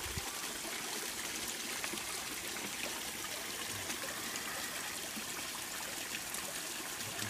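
Filtered water falling back into a fish pond: a steady trickle and splash from the pond filters' outlets, a perforated stormwater-pipe filter dripping and a box filter's spout pouring onto the water surface.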